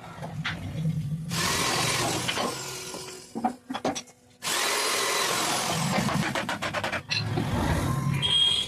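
CNC router spindle cutting wood: a loud, high hissing cut that starts abruptly, breaks off for a moment partway through, and then resumes.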